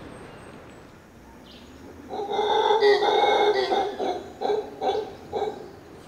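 Mantled howler monkey calling: a long gruff howl starting about two seconds in, followed by a string of shorter grunting calls.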